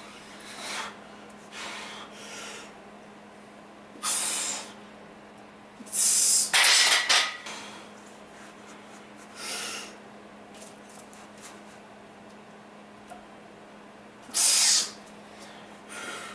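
A lifter breathing hard: sharp, noisy breaths and exhales come every second or few seconds, the loudest about six seconds in and again near the end. A faint steady hum sits under them.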